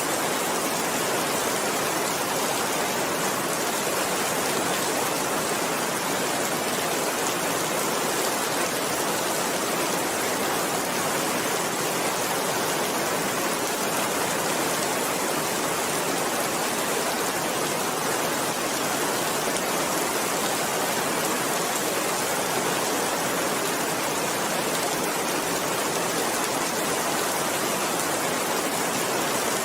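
Steady rain falling: an even, unbroken hiss with no thunder or separate drops standing out.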